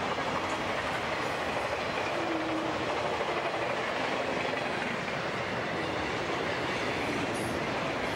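Intermodal freight train of highway trailers on flatcars rolling past, a steady, dense noise of wheels on rail.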